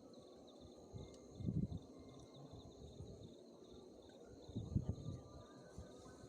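Insects, likely crickets, chirping in a steady high pulsing chorus. Two short low rumbles break in about one and a half seconds in and again near five seconds.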